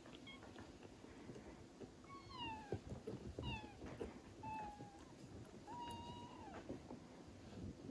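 Newborn Thai kittens mewing: four thin, high mews in the middle of the stretch, the last one the longest, over faint rustling.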